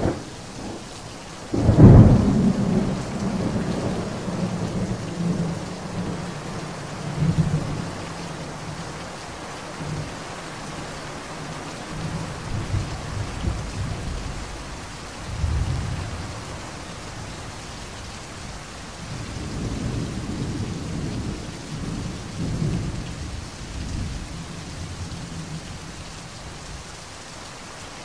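Steady heavy rain with a thunderstorm: a sharp, loud thunderclap about two seconds in, then low rolling thunder that swells and fades several times.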